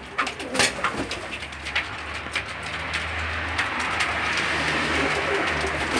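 Domestic pigeons cooing in the loft, with a few sharp taps in the first second.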